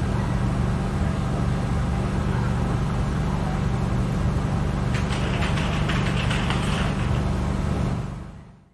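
Steady low mechanical hum, like an idling engine, with a few faint clicks about two-thirds of the way through. It fades out near the end.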